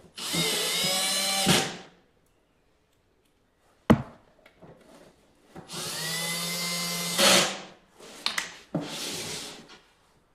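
Electric screwdriver or small power drill running in two bursts of about one and a half seconds each, a steady motor whine. A sharp click comes between the bursts, and a shorter, rougher burst near the end.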